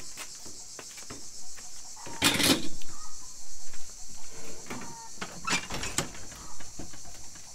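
Steady high-pitched insect chirring in the background, with rustling, crinkling and knocking as a fly net and duct tape are handled on a small stand; the loudest crinkle comes about two seconds in.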